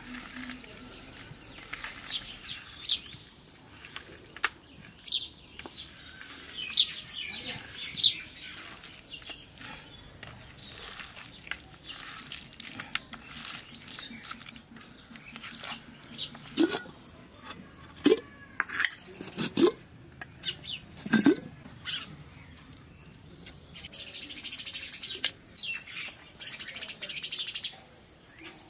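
Hands squishing and kneading raw duck meat with onions and spice paste in a steel bowl: irregular wet squelches and knocks, loudest in a cluster past the middle, with birds chirping in the background.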